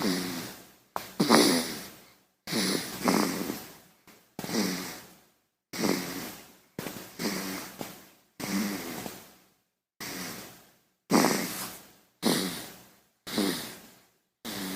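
A baby snoring: short, rasping breaths about one a second, each starting sharply and fading away, with brief silences between.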